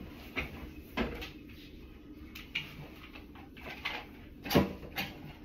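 Scattered knocks and light clatter of small household objects being handled and set down, with a sharp knock about a second in and the loudest knock a little past four and a half seconds.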